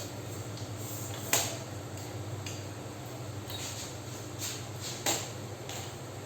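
Light clicks and knocks of kitchen items being handled, with two sharper knocks, one about a second in and one about five seconds in, over a steady low hum.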